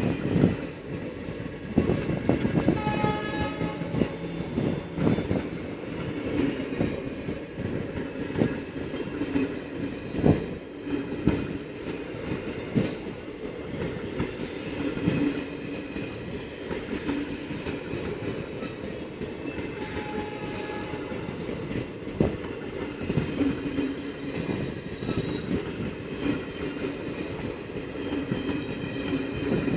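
Indian Railways passenger coaches rolling past, wheels clattering over the rail joints with a continuous rumble. A short train horn sounds about three seconds in.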